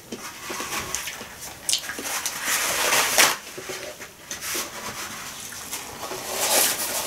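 A paper towel being pulled off a roll, torn off and rustled in the hands, in several crackling bursts, the loudest about three seconds in.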